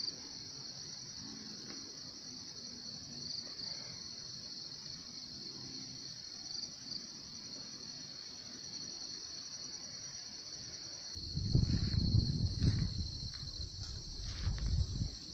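Steady high-pitched drone of insects in plantation vegetation. About eleven seconds in, low rumbling noise on the microphone starts and grows much louder.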